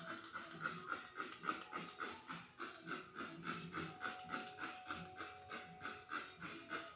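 Background music with a steady quick beat, a shaker-like tick about three or four times a second.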